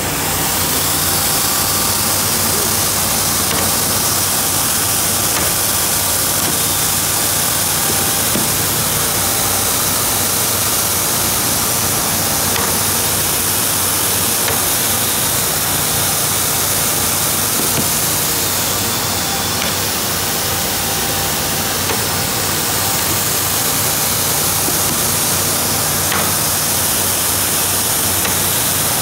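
Costa wide belt sanding machine running steadily: a continuous loud rush of noise with a steady low hum under it.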